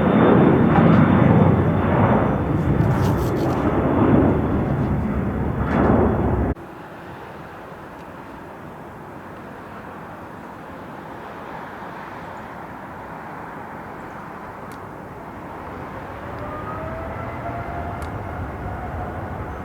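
Jet airliner engines running loud and close, cut off abruptly about six and a half seconds in. Quieter distant jet noise follows, with a rising engine whine building near the end.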